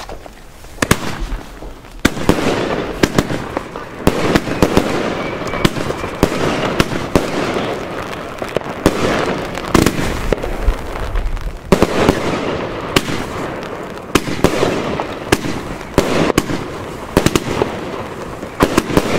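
Funke Nishiki Kamuro, a 30 mm, 44-shot firework battery, firing: the first shot goes off about a second in, then sharp launch reports and bursts come about every second, with a continuous crackling hiss between them.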